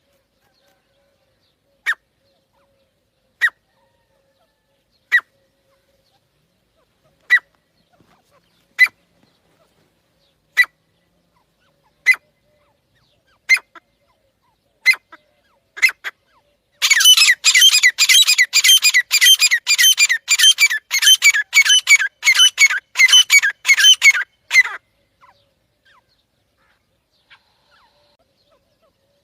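Teetar (francolin) calls: short, sharp, high calls repeated about every second and a half, then a fast run of calls, several a second, for about eight seconds before the calling stops.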